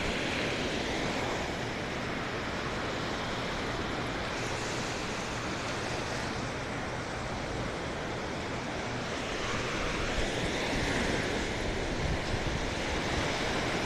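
Small lake waves breaking and washing up a sandy shore in a steady rushing wash of surf, with wind buffeting the microphone.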